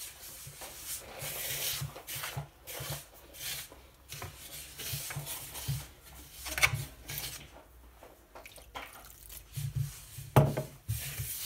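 A hand rubbing and stirring flour and fine semolina with water in a wooden bowl, gathering the dough without kneading: irregular soft scraping and rustling strokes against the bowl. A sharper knock stands out near the end.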